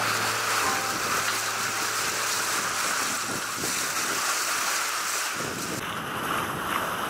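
Steady rush of sea water and wind aboard a sailing catamaran under way. A deeper rumble of wind on the microphone joins after about five seconds.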